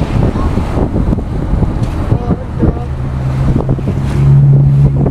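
Wind buffeting the microphone over the rumble of a moving vehicle, with a steady low engine drone coming up about three seconds in.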